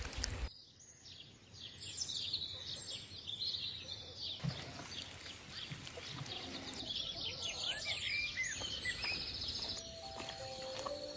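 Birds chirping and calling over outdoor background noise, many short overlapping calls with a few sliding whistles. Steady held notes come in near the end.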